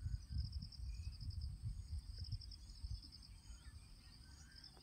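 Crickets chirping steadily, over faint, irregular low knocks and rumble that die down after about three seconds.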